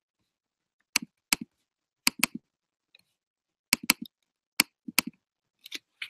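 Sharp clicks from someone working a computer to connect to and open a program, about a dozen at irregular intervals, several in quick pairs.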